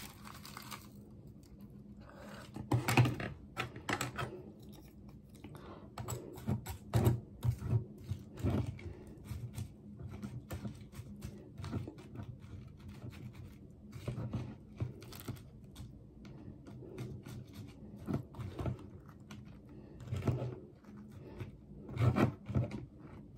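White plastic spoon stirring and scraping inside a plastic cup of vanilla pudding and cookie crumbles: scattered clicks and short scrapes, a few of them louder.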